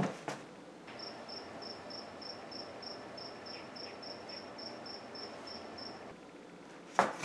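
A cricket chirping in short, evenly spaced pulses, about three to four a second, over faint outdoor background hiss. The outdoor sound starts about a second in and cuts off abruptly about a second before the end.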